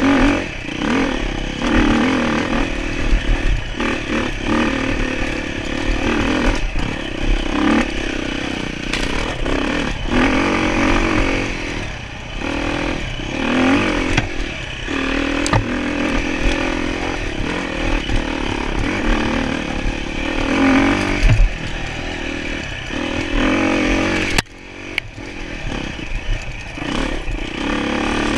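Enduro dirt-bike engine revving up and down as it is ridden, with scattered knocks and rattles. The engine note drops off sharply about three-quarters of the way through, then builds again.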